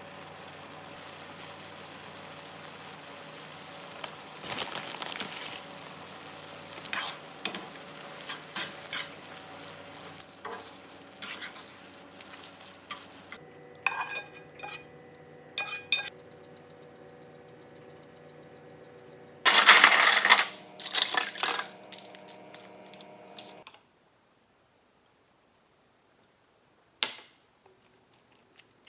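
Cooking in a pan: a utensil stirring and scraping with clinks of cookware, over a steady hum. About twenty seconds in comes a loud burst of clattering and scraping, then the hum cuts off, leaving one sharp click.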